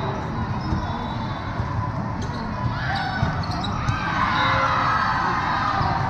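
Echoing hall ambience of volleyball play: balls being struck and bouncing on the courts over a constant background of crowd chatter. Players' and spectators' shouts rise from about three seconds in as the rally ends.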